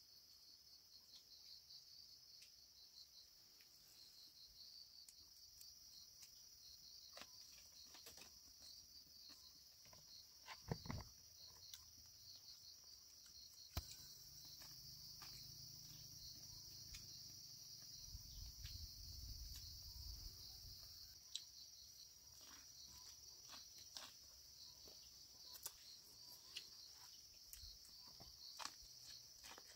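Faint, steady insect chirping in a high band, pulsing in quick chirps at first. A few short clicks and knocks stand out, the loudest about eleven and fourteen seconds in.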